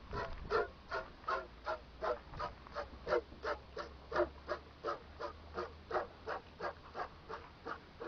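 Hand milking of a camel: squirts of milk hitting a plastic bottle in a steady rhythm, about three a second.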